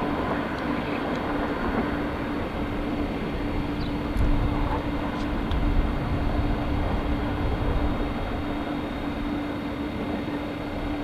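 Distant train running along the line: a steady rumble with a constant low hum.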